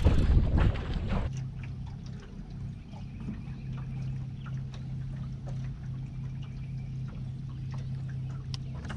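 Wind gusting on the microphone for about the first second, then a boat motor running with a steady low hum that stops near the end, with faint ticks and small water sounds over it.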